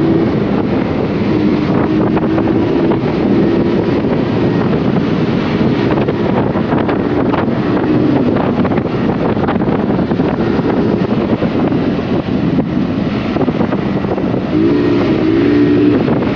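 Honda CBR150R motorcycle's single-cylinder four-stroke engine under way, with heavy wind rushing over the microphone. The engine's pitch shifts up and down under the wind and climbs briefly near the end.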